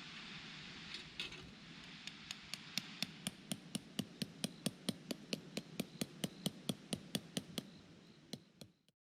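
Hammering: a run of light, sharp, evenly spaced blows, about three a second, starting about two seconds in and stopping near the end, over a faint steady hiss.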